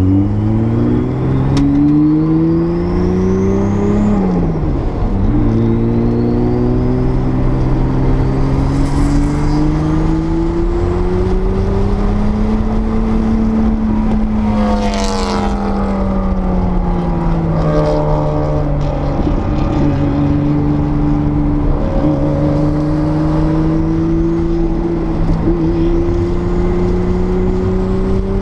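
1979 Porsche 930 Turbo's 3.3-litre turbocharged air-cooled flat-six under load on track. Revs climb, drop sharply at a gear change about four seconds in, and climb again. They fall away for a few seconds past the middle, then rise slowly again near the end.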